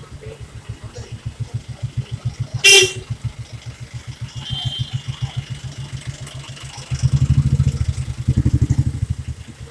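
Street traffic: a vehicle engine running nearby with a steady low, rapid putter, and a short loud horn honk a little under three seconds in. About seven seconds in the engine sound grows louder as a vehicle passes close by.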